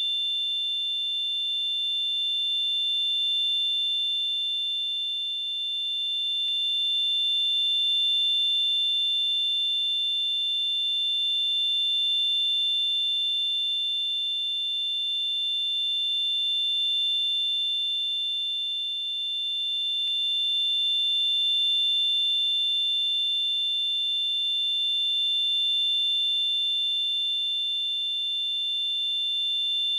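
Tinnitus sound effect: a steady high-pitched ringing made of two close tones over a faint hiss, its loudness slowly swelling and easing every few seconds.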